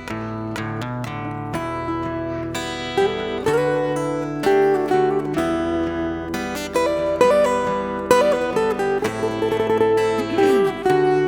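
Acoustic guitars playing an instrumental passage: strummed chords, then a picked melody with sliding notes over them, louder from about three seconds in.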